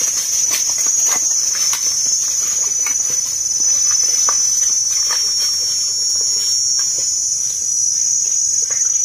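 A steady high-pitched drone of insects, with footsteps crunching through dry fallen leaves at irregular intervals.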